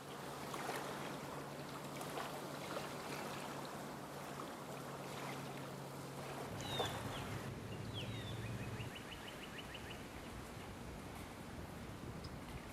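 Outdoor waterside ambience: a steady hiss with scattered small clicks and a low steady hum. About six and a half seconds in, a bird gives a short falling chirp, followed a moment later by a quick rattling run of notes.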